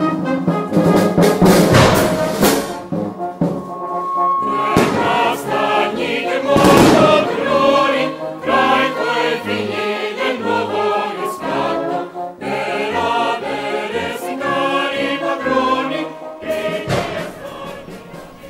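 Choir singing sacred music with instrumental accompaniment, fading out near the end.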